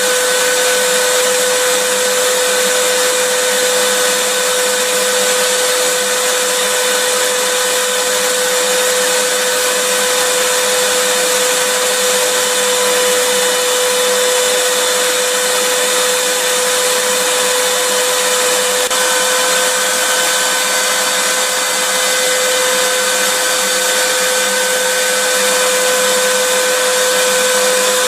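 Vacuum cleaner motor running steadily: an even loud hiss of rushing air with a constant high whine, played as white noise to soothe a baby.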